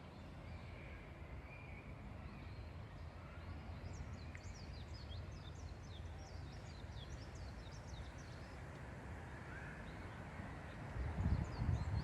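Small birds twittering in quick flurries of short, high chirps, with a steady low rumble underneath and a few louder low thumps near the end.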